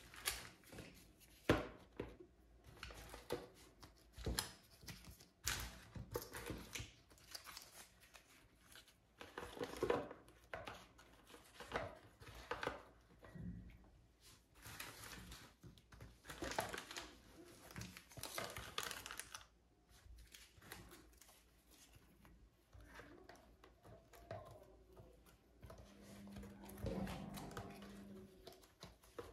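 Small zip-lock plastic packets of soft modelling clay crinkling and rustling as they are picked up and packed side by side into a cardboard box, in irregular bursts. Near the end, a packet is squeezed between the hands.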